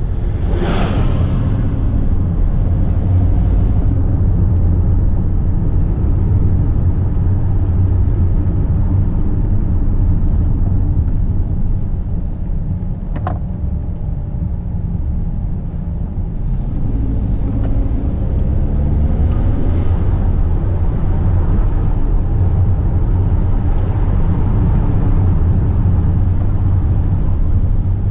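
Car engine and road rumble heard from inside the cabin while driving, low and steady. About a second in, an oncoming small truck passes with a brief whoosh. There is a single sharp click about halfway, and the engine note rises briefly about two-thirds through.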